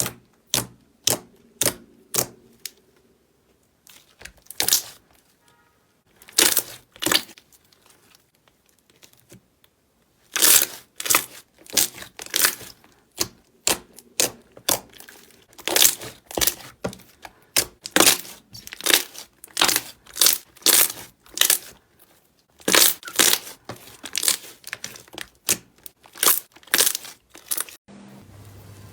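Slime being squeezed and pressed, giving sharp crackling, popping bursts. A few are scattered at first, then they settle into a steady run of about two a second.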